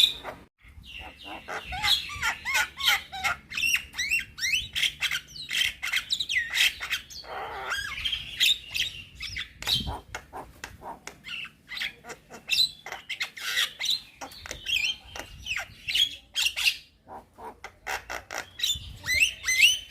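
Young Javan myna (jalak kebo) singing a long, varied song of harsh squawks, rapid clicks and short whistled glides, almost without pause, with brief breaks about half a second in and near the end.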